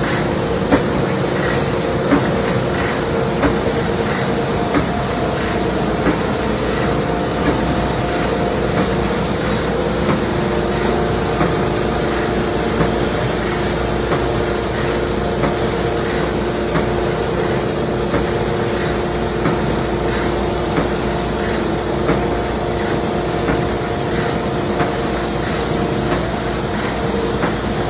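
Industrial plastics-processing machine running steadily, with a sharp clack repeating a little over once a second.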